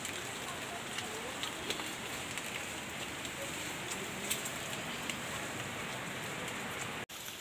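Light rain pattering on forest foliage: a steady hiss with scattered small ticks. It drops out for an instant near the end.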